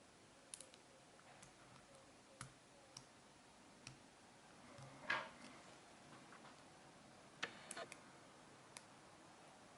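Faint, scattered clicks and light scrapes of a lock pick and tension wrench working the wafers of an Illinois double-wafer padlock. A louder scratch comes about five seconds in, and a quick run of three or four clicks follows a couple of seconds later.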